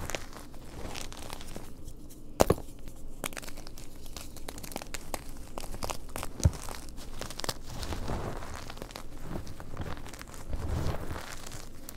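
Gym chalk blocks being crushed and crumbled by hand, a dense run of soft crunches and crackles as the chunks break and grind into powder. Two sharp snaps stand out, about two and a half and six and a half seconds in.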